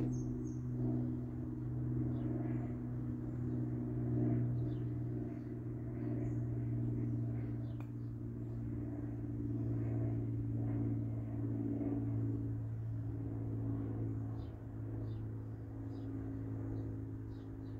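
Steady low machine hum at a fixed pitch, with faint short high chirps in the last few seconds.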